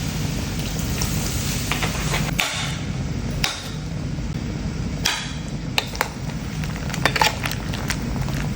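Kitchen utensils and cookware clattering on the stove: scattered clicks and knocks, several close together around the middle, over a steady low hum.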